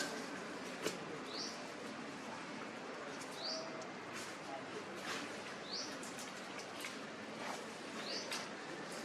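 A bird chirping: a short, high, rising chirp repeated about every two seconds over a steady background hiss, with a sharp click about a second in.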